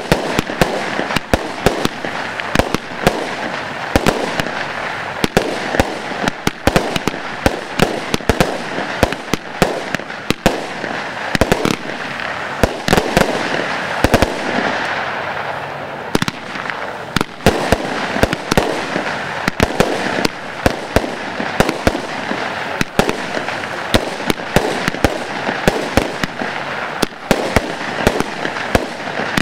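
Broekhoff Tornado Superset consumer firework cakes firing continuously: a rapid, irregular string of sharp bangs over a steady hissing of burning stars.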